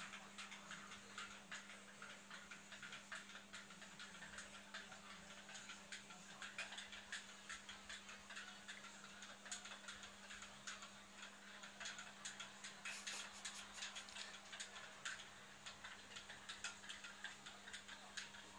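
Near silence: quiet room tone with a faint steady hum and scattered faint irregular ticks and clicks.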